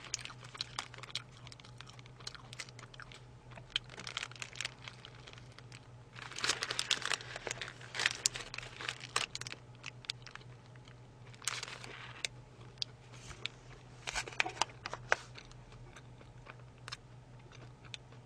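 Close-miked eating: a paper burger wrapper crinkling while a fried chicken burger is bitten and chewed. There are scattered small crackles, with a denser run of crinkling and crunching about six to nine seconds in, over a steady low hum.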